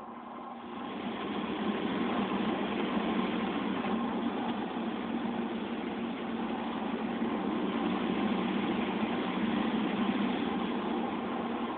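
Automatic car wash equipment working over the car, heard from inside the cabin: a steady rushing noise that swells about a second in and drops off near the end.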